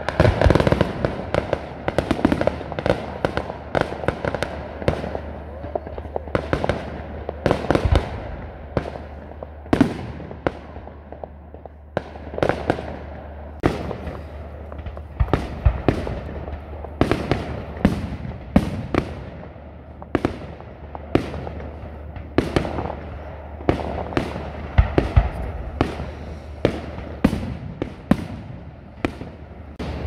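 Display fireworks bursting in quick, irregular succession: many sharp bangs, some bunched close together, over a steady low hum.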